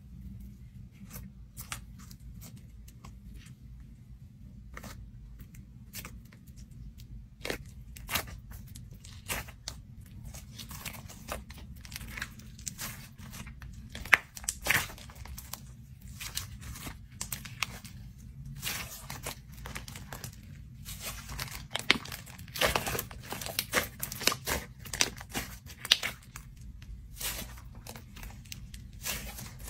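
Thick white slime with a crunchy cookie-crumb topping being poked and kneaded by hand: crackling, crunching and sticky clicks and pops. They are sparse at first, grow much denser after about seven seconds, and the loudest crunches come near the middle and again toward the end.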